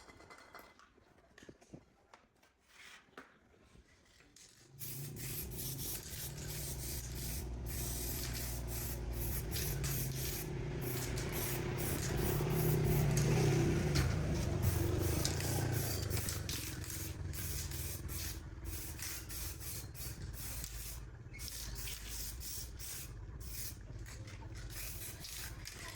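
A steady hiss over a low motor hum starts suddenly about five seconds in, swells in the middle and eases off near the end.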